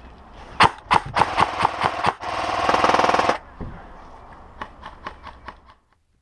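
Airsoft guns firing: two single shots, a quick string of shots, then a long full-auto burst of about a second, followed by scattered fainter shots that die away.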